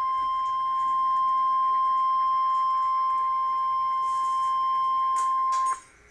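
NOAA Weather Radio 1050 Hz warning alarm tone: one steady, loud beep that cuts off abruptly near the end, leaving faint radio hiss. The tone signals that a warning message follows.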